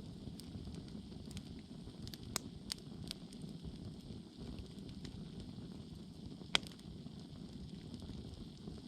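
Campfire burning, with a steady low rush under scattered sharp wood crackles and one loud pop about six and a half seconds in.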